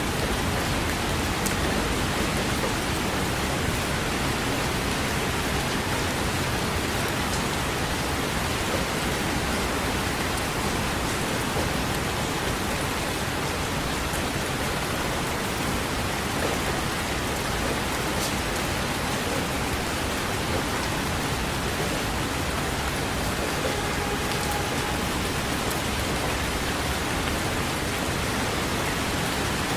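Steady rain falling, an even hiss with a few faint drop ticks and no thunder.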